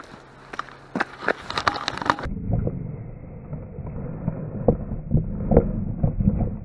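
Handling noise of a jostled body-worn camera: a run of sharp clicks and knocks, then from about two seconds in a muffled, low rumbling with scattered thumps as the camera tumbles and rubs.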